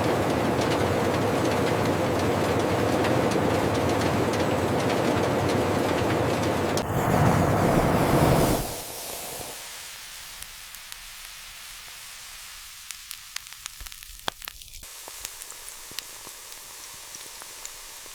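A steady rushing noise, like machinery or running water, swells for a moment and cuts off about eight and a half seconds in. After it comes a much quieter stretch with scattered light clicks.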